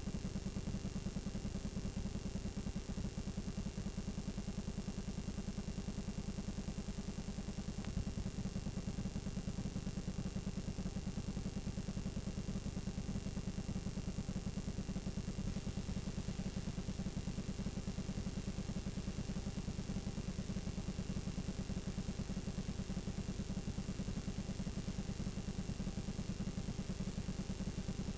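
Steady low electrical buzz with a faint hiss and a thin high whine: the noise of a blank stretch of videotape playing back static.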